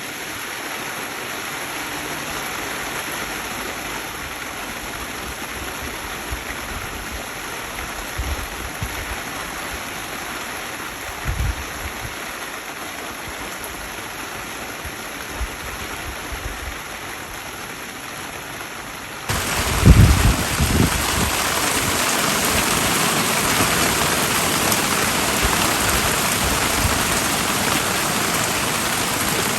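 Intense rain falling heavily in a steady hiss of drops on surfaces, with a few dull low thumps. About two-thirds of the way in the rain abruptly becomes louder and brighter.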